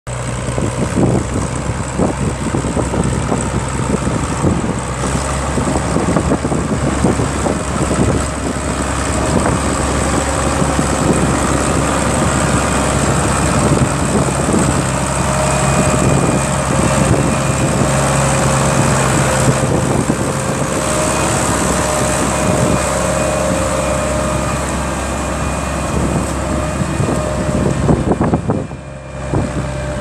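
Case IH 1056XL tractor's six-cylinder diesel engine running steadily under load while ploughing, growing louder as the tractor passes close by about halfway through.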